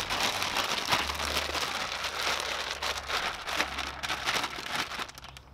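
Clear plastic bag of loose mushroom spawn crinkling and rustling as it is squeezed and handled, fading near the end.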